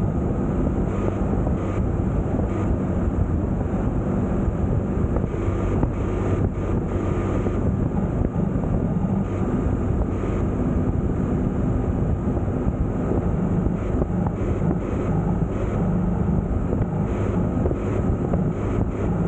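Wind rushing over the microphone with a vehicle's engine running at a steady speed underneath, as on the open road.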